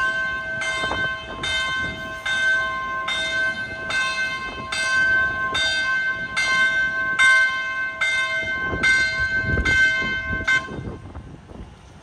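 A warning bell ringing in even strokes, about three every two seconds, each stroke ringing on into the next; it stops about 11 seconds in.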